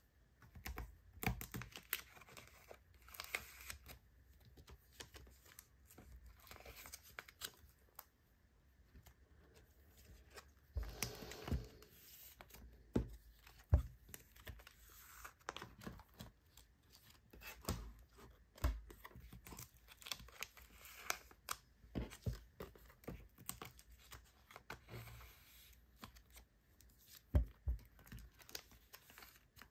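Photocards being slid into clear plastic binder sleeve pockets: crinkling and rustling of the plastic sleeves with irregular soft taps and clicks as cards and pages are handled, and a longer rustle about eleven seconds in.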